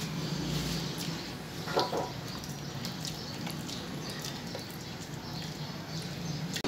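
A spoon stirring and scraping vermicelli custard that is thickening in an aluminium pan, over a steady low hum. There is a brief, louder pitched scrape about two seconds in.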